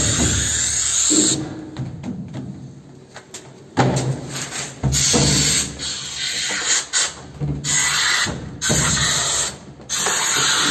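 Expanding polyurethane foam being sprayed from a pressurised can in repeated short hissing bursts, about six in all, as the gap around a door frame is filled.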